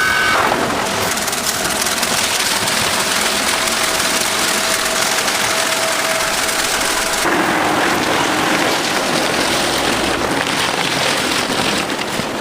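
Hot oil sizzling and crackling steadily as food deep-fries, with the crackle changing character about seven seconds in.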